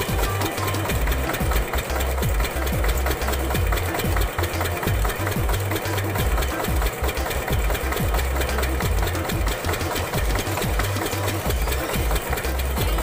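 Stationary farm diesel engine running steadily with a rapid, even knocking beat, driving a belt-driven water pump in a well.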